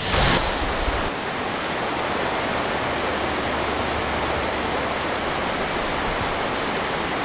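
River rapids rushing over bedrock: a steady, even rush of water, with a brief louder burst right at the start.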